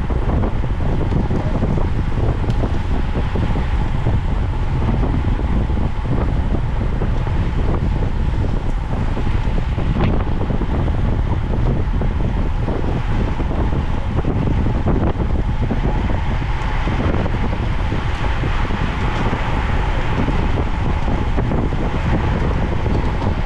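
Steady wind rush buffeting the microphone of a racing cyclist's onboard camera at speed, heaviest in the low end.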